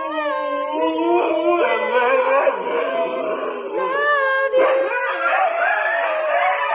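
Dogs howling together: long howls that bend up and down in pitch, with two or more voices sounding at once at different pitches.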